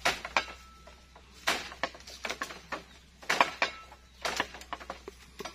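Dry bamboo being cleared: an irregular string of sharp cracks and knocks from bamboo stems, the loudest about one and a half and three and a half seconds in.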